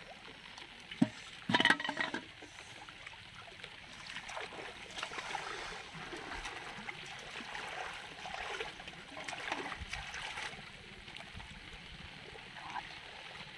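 Shallow water splashing and sloshing in irregular bursts as someone wades and works with their hands in a weedy flooded field. Near the start, sharp knocks against a metal pot, the loudest sounds of the stretch.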